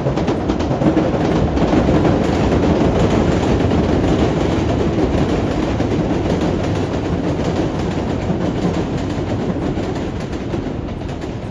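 A train running past on the rails, its wheels making a dense clatter. It is loudest about two seconds in and slowly fades after that.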